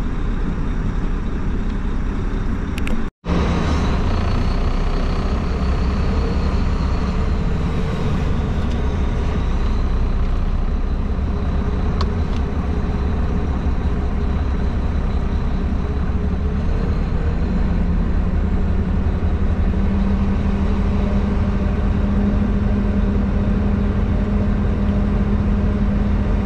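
Mack semi truck's MP8 diesel engine running steadily, heard from inside the cab, its pitch rising slightly about two-thirds of the way through.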